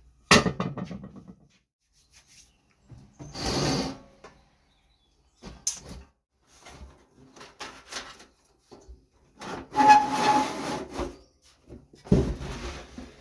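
Furnace parts being handled and fitted together during reassembly: a sharp click, then scraping and rubbing with scattered small knocks, with a longer scrape about ten seconds in.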